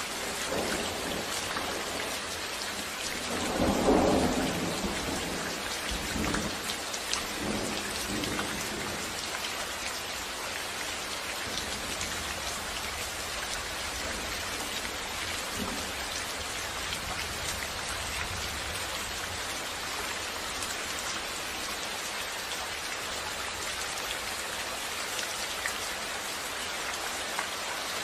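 Steady heavy rain hissing on surfaces. A rumble of thunder swells about four seconds in, with fainter rumbles rolling on over the next few seconds.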